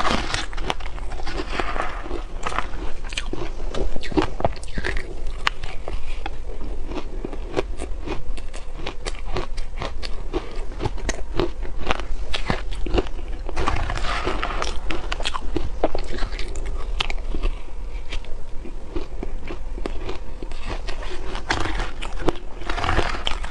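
Close-miked biting and chewing of soft shaved ice coated in matcha powder: a dense, irregular crunching and crackling that runs without a pause.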